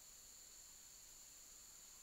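Faint, steady high-pitched insect chorus holding two unbroken tones over a light background hiss.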